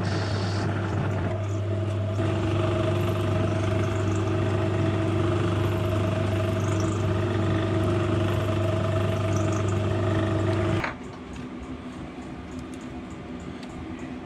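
Metal lathe running with a steady hum, and a steady whine joining about two seconds in, turning a cast steam-pump gland in a four-jaw chuck. The lathe stops about eleven seconds in, leaving the quiet, even ticking of a diesel heater's fuel pump.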